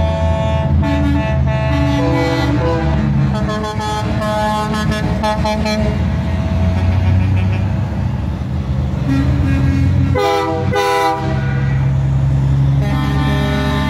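Semi-truck air horns sounding in long, overlapping blasts at several pitches at once, over the steady low running of the passing trucks' diesel engines. A strong new horn blast starts about ten seconds in.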